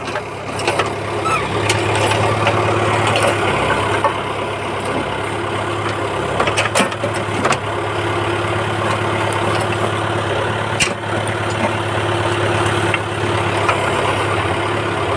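An engine idling steadily, with a few sharp knocks about 7 and 11 seconds in.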